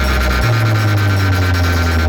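Electronic dance music played loud through a large DJ sound system under test, dominated by heavy sustained bass notes; the bass steps up to a higher note about half a second in.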